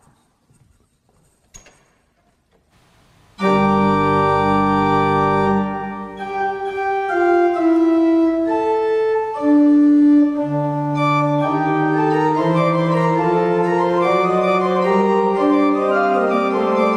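Church organ starting the closing voluntary after the blessing. After a few quiet seconds with faint small knocks, a loud full chord with low bass notes sounds about three and a half seconds in, and moving melodic lines follow over sustained notes.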